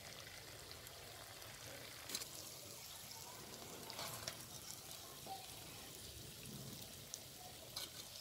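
Hot tinda curry faintly sizzling in a clay pot, with a few light clicks of a steel slotted spoon scooping it out.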